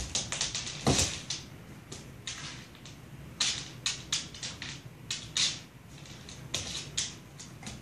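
A dog's claws clicking and scrabbling on a hardwood floor in quick, irregular runs as she pounces and paws at a piece of kibble, with an occasional heavier thump of her paws landing.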